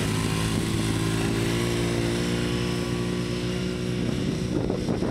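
Arctic Cat Wildcat side-by-side UTV engine running at a steady, nearly constant speed as the vehicle drives across a dirt course.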